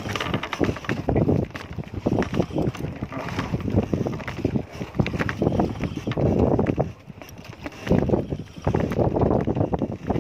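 Strong wind buffeting the microphone in uneven, rumbling gusts, with scattered clicks and knocks. It drops off briefly about seven seconds in, then picks up again.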